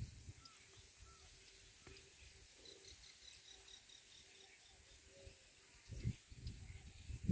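Quiet waterside ambience: faint scattered high chirping over a faint steady hum, with a few low thumps near the end.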